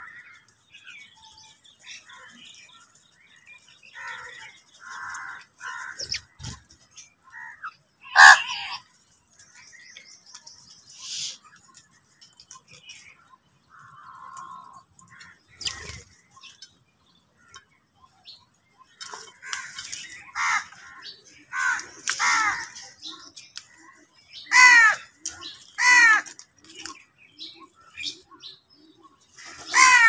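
House crows cawing as a flock feeds: single calls scattered through, the loudest about eight seconds in, then a run of loud caws in the second half.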